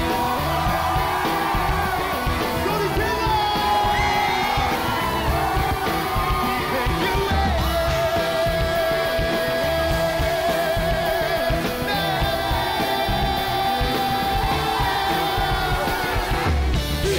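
Live pop-rock band playing with singers and a large crowd chorus singing along, with shouts, and one long note held through the middle.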